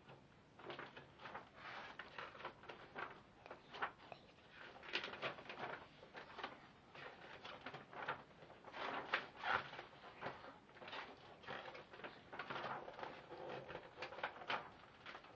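Pages of a large paper wall calendar being turned and handled: faint, irregular rustling of paper.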